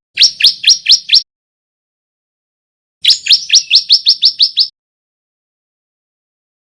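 Male bar-winged prinia (ciblek) singing in two quick runs of rising chirps: about five notes at the start, then about nine more around three seconds in, with silence between. It is a male still learning its song.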